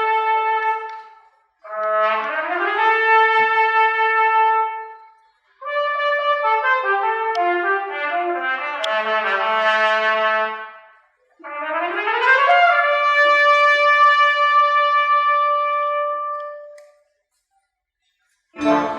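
A solo brass instrument plays a slow melody in separate phrases, sliding up into long held notes, with a falling run in the middle. Each phrase stops cleanly. After a short silence near the end, the full orchestra comes in all at once.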